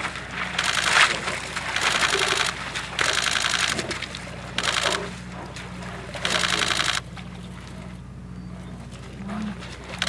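Brown bears fighting: a run of about six harsh, rough bursts, each under a second, over a steady low hum, easing off for the last few seconds.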